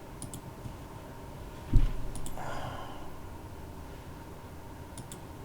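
Computer mouse clicks in quick pairs, near the start and again about five seconds in. About a second and a half in comes a sharp low thump, the loudest sound here, followed by a breathy exhale.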